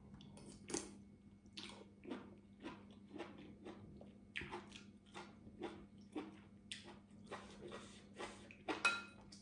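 Close-up chewing and lip-smacking on a mouthful of fish curry with pickled bamboo shoots: soft wet clicks about twice a second. Near the end a metal spoon clinks against the glass curry bowl with a short ring.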